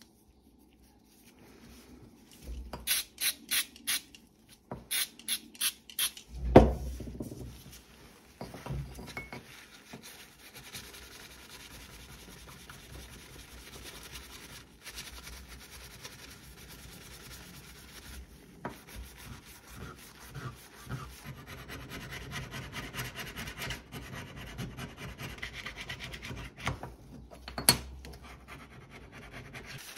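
A cloth rubbing and scrubbing a steel Gardena secateurs blade clean. About two seconds in comes a run of quick, sharp scraping strokes and a single loud knock, then steady rubbing with one click near the end.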